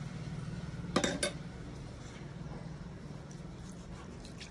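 A spoon clinking against a vessel, with two sharp clinks about a second in, over a faint steady hum.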